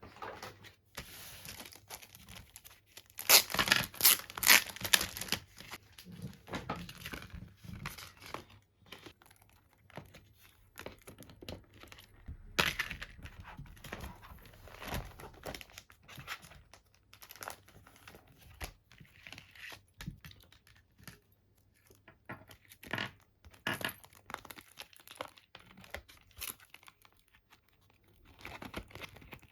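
Thin plastic packaging rustling and crinkling as it is handled, in irregular bursts, loudest about three to five seconds in.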